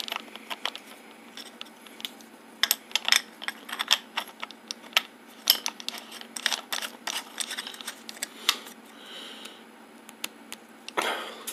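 An abrasive wheel being knocked loose and turned off the spindle of a DeWalt angle grinder by hand, with irregular metallic clicks and clinks. They come thickest through the middle.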